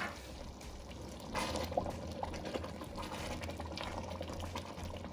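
Thick tomato bolognese sauce simmering in a stainless steel pot while a wooden spoon stirs through it: wet bubbling and sloshing, loudest about one and a half seconds in.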